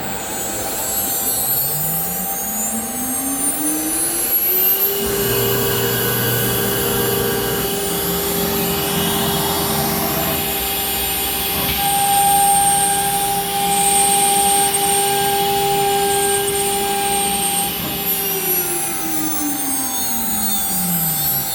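CNC router's automatic-tool-change spindle spinning up with a rising whine over about four seconds, running at speed with a steady high whine, then winding down with a falling pitch near the end.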